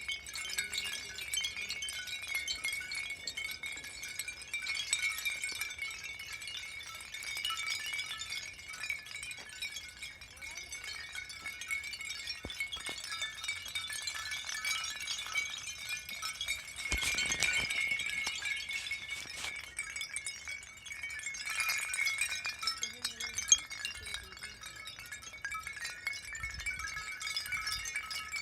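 Home-made foley effect for a light-bulb spirit: a steady high ringing tone with fine glassy clinking and crackling above it. It swells twice, with a knock about two-thirds of the way through and a sharp click a few seconds later.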